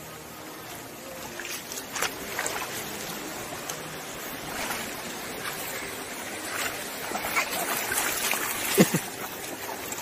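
Shallow rocky mountain stream flowing steadily over stones, with scattered small splashes and knocks as children wade through it. A short falling vocal sound, a child's exclamation, comes near the end.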